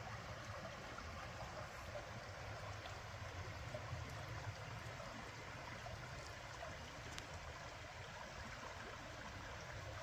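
Shallow creek flowing steadily over a rocky bed, an even trickling and babbling of water.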